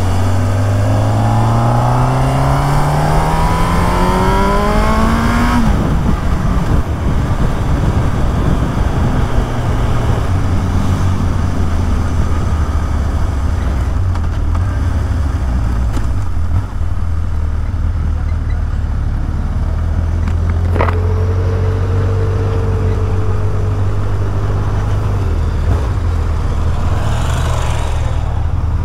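Honda CB1000R inline-four engine accelerating in one gear, its pitch rising steadily for about five seconds. Then the throttle closes and it runs at low revs, with wind noise on the microphone. A short higher tone sounds about two-thirds through.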